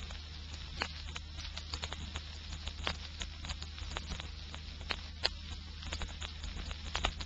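Surface noise of a vinyl record playing through a quiet gap: scattered, irregular clicks and crackles over a steady low hum.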